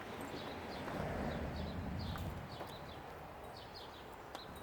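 A small bird chirping over and over in short, quick downward notes, with a steady outdoor background hum beneath.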